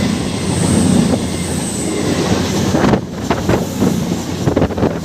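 Train passing close at speed: a loud rushing rumble with a thin high wheel squeal in the first half, then rapid clattering of wheels over rail joints from about three seconds in.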